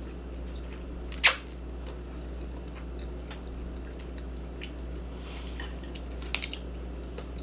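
Close-miked chewing, with one sharp crunchy bite about a second in and a few small clicks and mouth noises later, a short cluster of them near the end.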